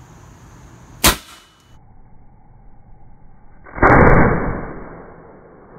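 A homemade black-powder cannon made from 3/4-inch steel pipe firing: a sharp crack about a second in, then the shot about four seconds in, a loud bang that fades over a second or so.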